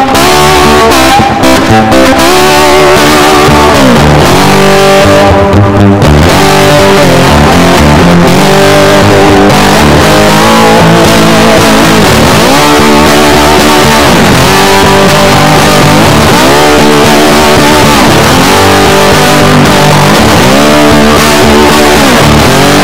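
Loud background music led by guitar, its notes repeatedly bending and sliding up and down in pitch over a steady low accompaniment.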